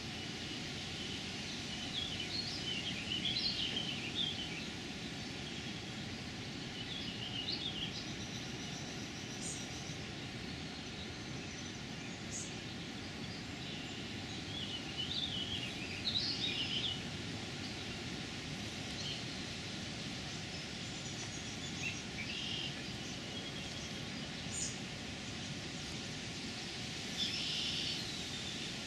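Songbirds singing in short phrases every few seconds over a steady rushing background noise.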